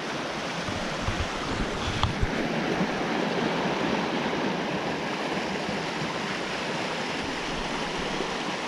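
Steady rush of the Pedernales River pouring through a narrow channel and small cascade in the limestone, with a few brief low bumps a second or two in.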